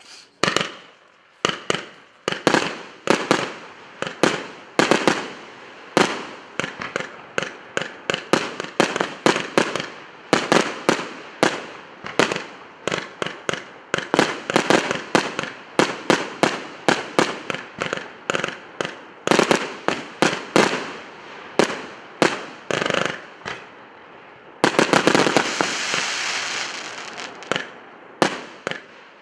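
Emperor Maximum Impact 180-shot firework compound cake firing: a long run of sharp bangs, about two a second, as its tubes launch shots that burst in the air. About 25 seconds in, a dense stretch of continuous noise lasts a couple of seconds before the separate bangs return.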